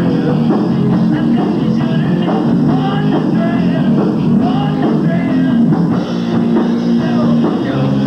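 Live rock band playing: electric guitars, bass guitar and drum kit, with a lead singer at the microphone.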